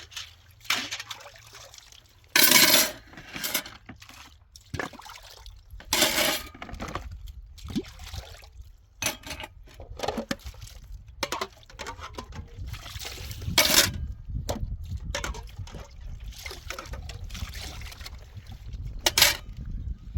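Domestic handling sounds: water pouring and things clinking in irregular bursts, with a low steady rumble underneath from about five seconds in.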